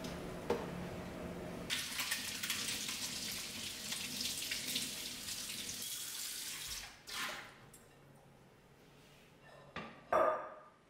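Kitchen tap running water over a cutting board in a stainless steel sink, a steady hiss that stops about seven seconds in. A brief louder sound comes near the end.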